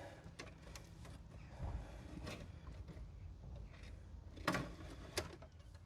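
Faint handling noises as the opened diesel heater and its plastic parts are moved about, with two light knocks about four and a half and five seconds in.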